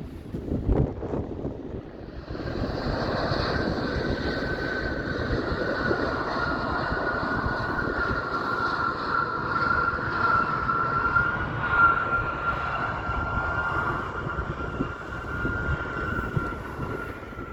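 Jet aircraft engines whining steadily, a high held tone over a rushing hiss, starting about two seconds in and fading near the end, with wind buffeting the microphone at the start.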